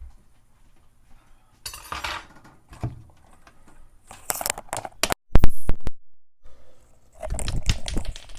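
Kitchen handling noises: clattering of dishes and noisy rustling as food is taken out and handled, with a very loud knock about five seconds in and denser rustling and clicking near the end.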